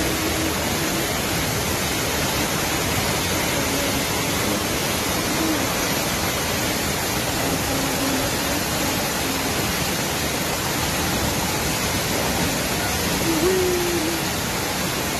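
Steady rush of a muddy floodwater torrent pouring down a wall and surging through a flooded car park. A few faint pitched calls sound over it, the clearest near the end.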